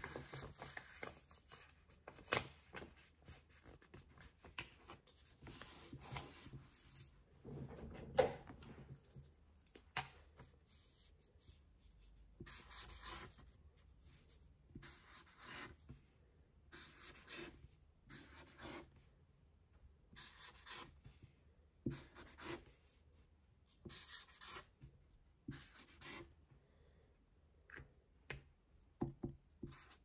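Faint handwriting on paper: a pen scratching in short, irregular strokes, with soft rubbing of hands and paper between them.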